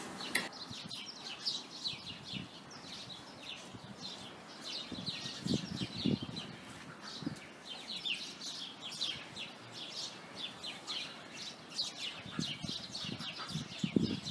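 A flock of sparrows chirping continuously in the trees, many short, quick chirps overlapping, with a few soft low thumps about five seconds in and again near the end.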